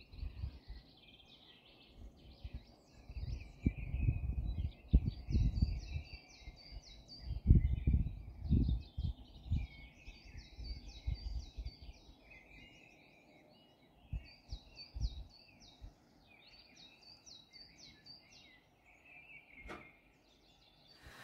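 Small birds singing, with short chirping phrases repeated over and over, while gusts of wind buffet the microphone in irregular low rumbles that are the loudest sound. One sharp click comes near the end.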